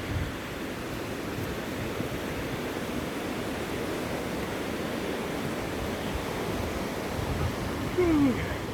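Steady rushing roar of Narada Falls, a waterfall, with a short voice-like falling sound near the end.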